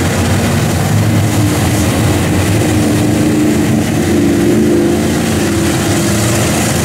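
Lifted pickup truck's engine running loud under load as it churns through a deep mud hole, pulling a little harder around the middle, with mud and water spraying off the tires.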